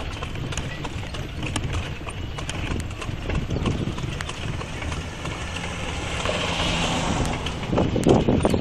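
A horse's hooves clip-clopping on asphalt as it pulls a two-wheeled calèche, with the carriage rumbling and rattling along. A rushing noise swells and fades about six to seven seconds in, and the hoof strikes are loudest near the end.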